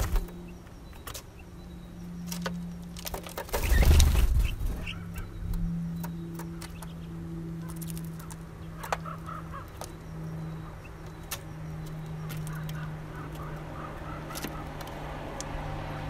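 Eurasian bullfinches at a tray feeder of sunflower seeds: scattered sharp taps of pecking among the seeds and husks, a loud rustling burst about four seconds in, and faint bird calls in the last few seconds, over a steady low hum.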